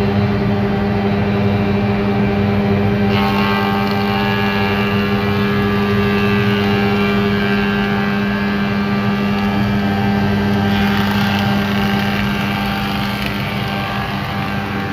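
Old Wadkin four-sided planer/moulder running with its cutter heads and feed on, a loud steady machine hum. About three seconds in, a brighter, harsher sound joins, typical of pine skirting board being fed through the cutters.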